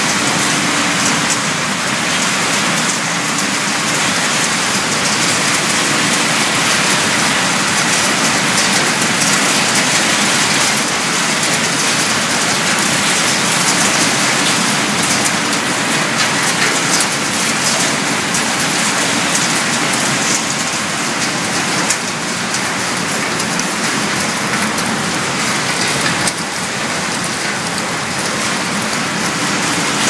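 Refrigerator recycling plant machinery running: a loud, steady, dense rushing clatter with a faint hum underneath, easing slightly twice near the end.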